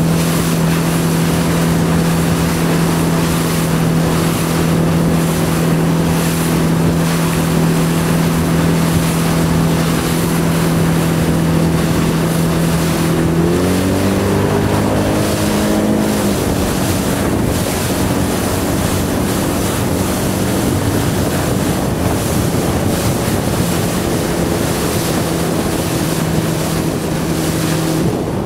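A motorboat engine running steadily over wind buffeting the microphone and water rushing past. About halfway through the engine speeds up for a few seconds, then drops back to a steadier, weaker note.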